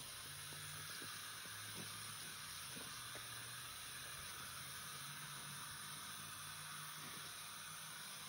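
Tap water running in a steady stream into a sink full of cleanser foam, giving an even hiss, with a few faint squishes as a gloved hand scrubs and squeezes a wet sponge in the suds.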